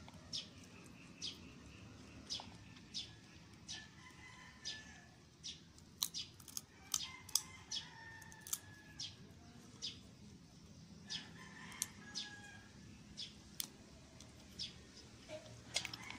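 Peanuts being crunched and chewed close to the microphone: short, sharp cracks at irregular intervals, about one or two a second. Chickens and small birds call faintly in the background.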